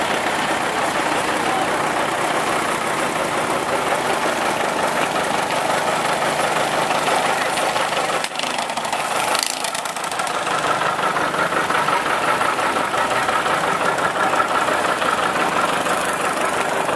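John Deere 820's two-cylinder diesel engine running as the tractor rolls slowly past, with other tractor engines running alongside.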